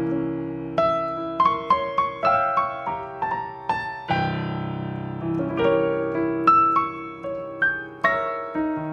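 Solo piano music: single notes and sustained low chords, each note struck and left to ring out.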